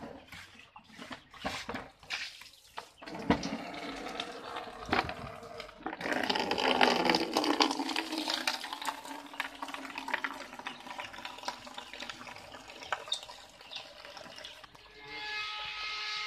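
Many chicks peeping at once in a crowded brooder, under a rushing, noisy wash with scattered clicks and knocks. The wash is loudest from about six to ten seconds in.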